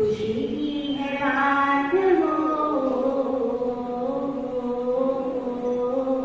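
A woman chanting a Jain devotional song into a microphone, holding long drawn-out notes; the voice rises to a higher note about a second in and slides slowly back down.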